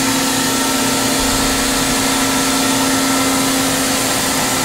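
Steady machine hum from a powered-up 1995 Toyoda horizontal machining center standing idle, with a constant low tone over an even whirring hiss.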